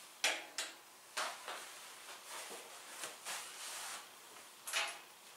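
Hands handling a small tripod ball head: a scattered series of short clicks and rustles, about six in all.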